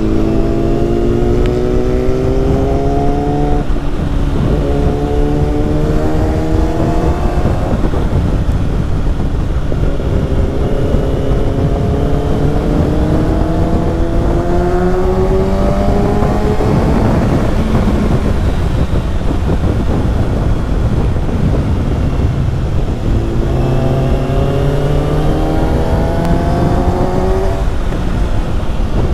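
2018 Kawasaki Ninja ZX-6R's inline-four engine through an Akrapovic slip-on exhaust, pulling through the gears. The pitch climbs and then drops at each shift, four times, with a longer, steadier stretch in the middle.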